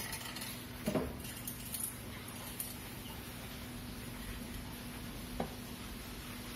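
Room tone with a steady low electrical hum, broken by two soft knocks, one about a second in and another about five seconds later.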